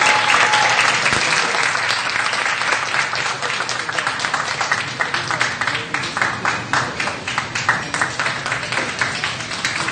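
Audience applauding, a dense clapping that thins out into more separate, distinct claps later on.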